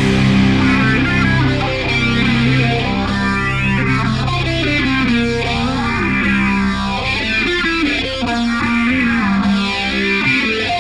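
Heavy stoner rock: distorted electric guitar run through an effects unit, its tone sweeping up and down in a slow, repeating swirl over a band.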